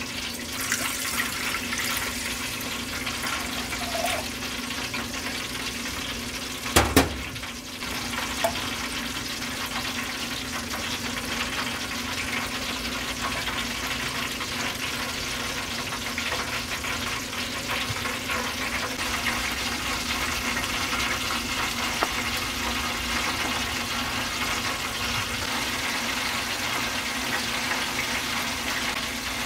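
Water, then heavy cream, poured into a hot stainless steel saucepan on the stove, giving a steady watery hiss. A single sharp knock about seven seconds in.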